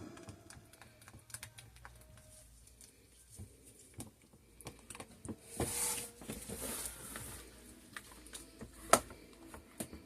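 Scattered light clicks and taps of soap-making tools and containers being handled, with a brief rustling scrape about halfway through and one sharp click near the end.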